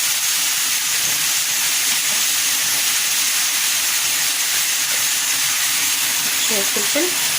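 Chicken pieces frying in butter and oil in a pan, a steady sizzle.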